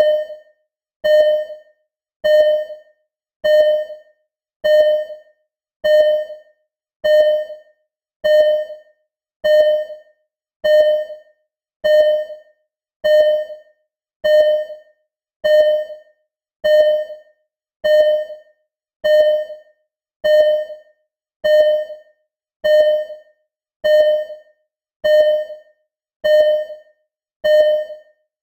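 Simulated ECG heart monitor beeping: a short mid-pitched electronic beep that fades quickly, repeating evenly about once every 1.2 seconds.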